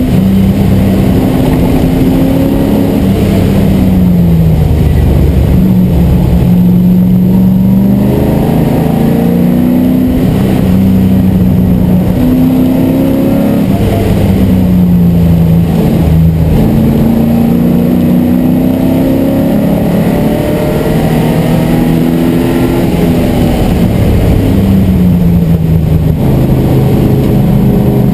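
MGB GT V8's V8 engine heard from inside the cabin at racing speed, loud throughout. Its note climbs and drops back again and again as the car accelerates and lifts off through the wet lap.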